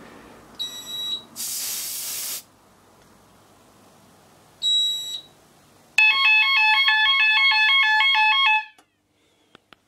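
A one-second hiss of aerosol test smoke sprayed at a smoke detector, with a short high beep before it and another after. Then a fire alarm sounder comes on loud with a rapidly alternating two-tone warble and runs for under three seconds before cutting off abruptly when it is silenced at the panel.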